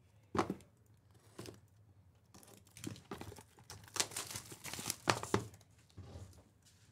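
Sports-card packaging being ripped open: wrapper tearing and crinkling in irregular bursts, loudest a little after the middle.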